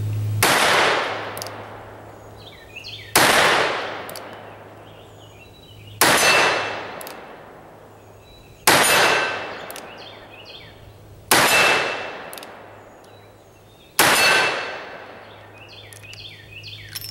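Six shots from a Smith & Wesson .44 Magnum revolver firing 240-grain loads, evenly spaced about two and a half seconds apart, each loud report followed by a long echo dying away.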